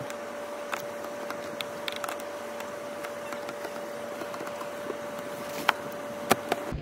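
Scattered sharp clicks and taps of pliers against the metal hinge of a plastic RV roof vent lid as its locking tab is bent down, over a steady hiss with a faint steady hum. The loudest click comes near the end.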